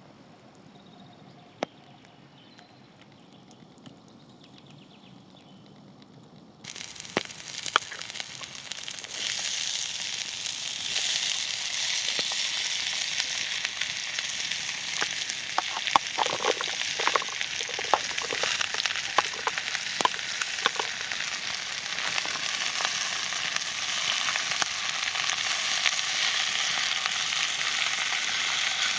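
Thick Tomahawk steak sizzling hard on the heat over a campfire, with scattered pops and crackles of fat. The sizzle starts abruptly about seven seconds in, after a quiet stretch with a single click.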